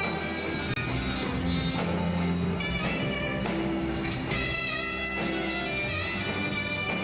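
Live band music from a saxophone section with brass, acoustic guitar and drums, playing steadily with a regular beat.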